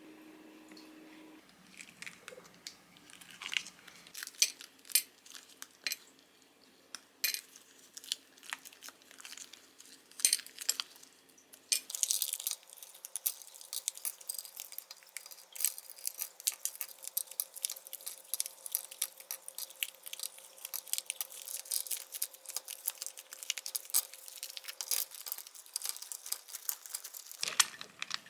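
Kitchen cooking sounds: scattered taps and clicks of utensils and dishes, then about twelve seconds in a dense run of rapid crackling clicks that continues until just before the end.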